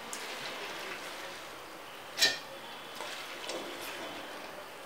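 Soaked whole green moong dal tipped from a bowl into a stainless-steel mixer-grinder jar, with one sharp knock about two seconds in and a couple of fainter taps later.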